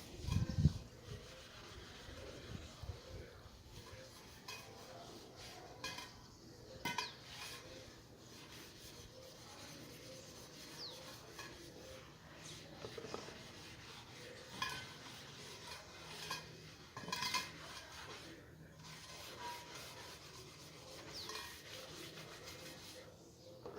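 Faint rubbing and scraping, broken by scattered light clicks and small clinks.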